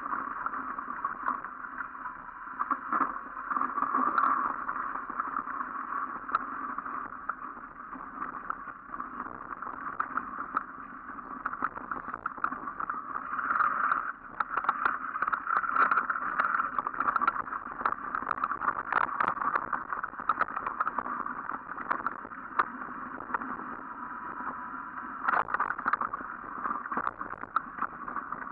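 Mountain bike rolling along a snowy forest dirt trail: a steady rush of wind and tyre noise, with frequent small knocks and rattles as the bike goes over bumps.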